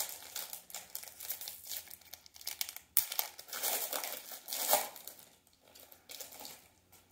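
Trading-card pack wrapper crinkling and tearing as it is opened by hand, with a sharp rip about three seconds in; the rustling is loudest from there to about five seconds in, then dies down.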